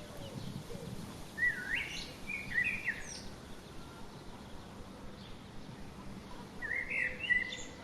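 A songbird singing two short warbling phrases of quick rising and falling notes, one about a second and a half in and another near the end, over a steady hiss of outdoor background noise.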